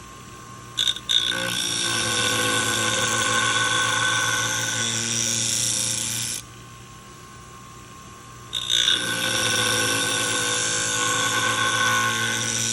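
Scissor blade ground on the wheel of a Wolff Twice as Sharp scissor sharpener in two passes of about five seconds each: a steady high grinding hiss with ringing tones over the machine's motor hum. Each pass opens with a short scrape as the blade meets the wheel. The grinding is taking out the last of the damage along the blade's edge.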